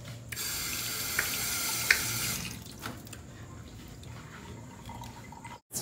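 Water running from a tap into a sink for about two seconds, then shut off, with a few light knocks during and after.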